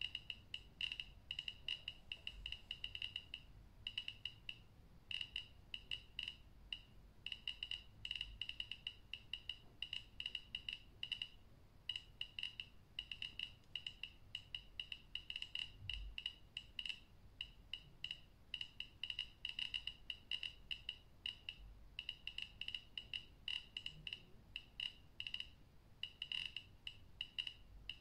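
Handheld radiation detector's count beeper: short high pips in an irregular, rapid stream, clustering and thinning at random. Each pip is one detected count, driven by the radium luminous paint of a watch dial.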